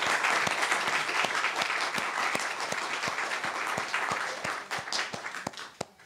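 Audience applauding, with distinct single claps close by; the applause dies away near the end.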